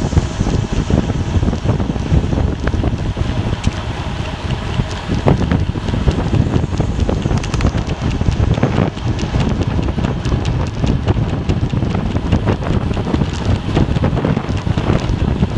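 Heavy wind buffeting the microphone, a steady low rumble with scattered crackles throughout.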